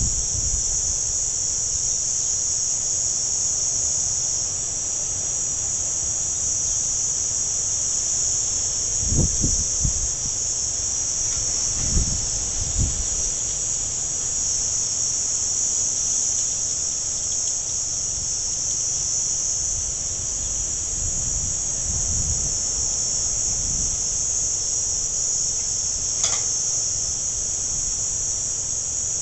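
Steady high-pitched insect chorus, one unbroken shrill drone. A few low thumps come about 9 and 12 seconds in, and one brief sharp sound near the end.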